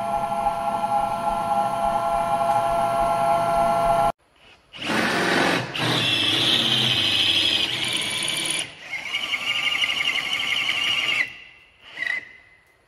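Stepper motors of an APSX Spyder desktop CNC mill whining steadily as the gantry is jogged from the handwheel pendant. After a cut about four seconds in, a cordless drill runs in four bursts, drilling mounting holes in a metal plate; the last burst is short, near the end.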